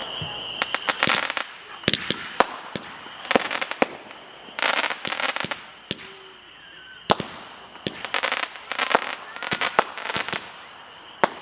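A batch of 5-ball Roman candles firing together: sharp pops come one after another as the balls launch, with dense crackling clusters in between.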